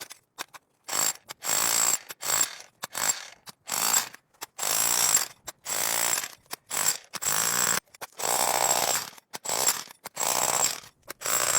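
Vevor electric demolition jackhammer hammering brick in about a dozen short bursts, each half a second to a second long, with a high whine running through each burst.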